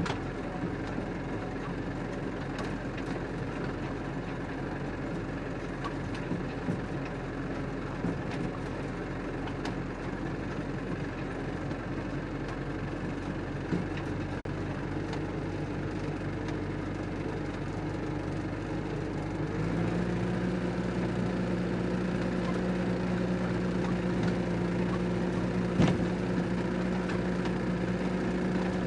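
Massey Ferguson 265 tractor's three-cylinder Perkins diesel engine running steadily while it works with a mounted sprayer. About two-thirds of the way through, the engine note steps up louder and higher, and there is a single sharp knock near the end.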